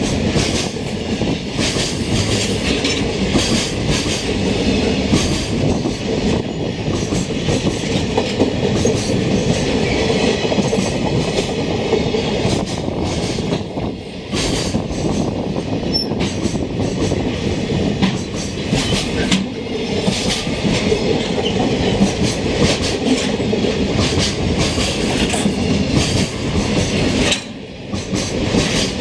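Container freight train passing close by: a continuous loud rumble with rapid, irregular clickety-clack of the wagons' wheels over rail joints, dipping briefly about halfway through and again near the end.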